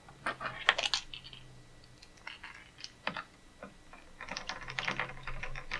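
Typing on a computer keyboard: quick runs of key clicks, a short burst in the first second and a longer, denser run in the second half.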